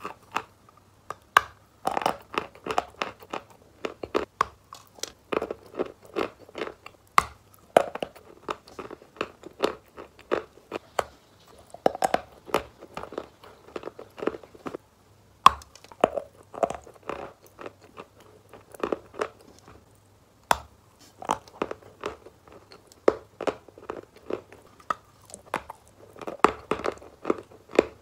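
A person biting and chewing wet "Valuichik" chalk close to the microphone: sharp cracks as chunks snap off the block, followed by runs of wet crunching chews, repeated in irregular clusters with short lulls.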